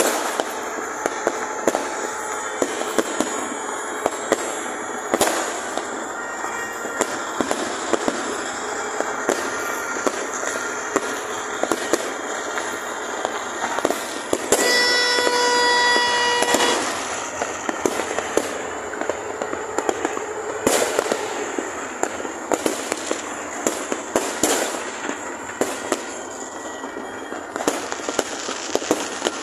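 Many fireworks and firecrackers going off at once: a continuous crackling din with frequent sharp bangs. About halfway through, a steady pitched tone like a horn sounds for about two seconds over it.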